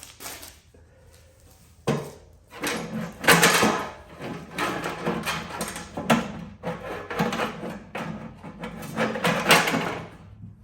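Metal clattering and scraping as a small steel safe is pried and broken apart with hand tools. It starts with a sharp knock about two seconds in and goes on as dense, irregular clatter that stops near the end.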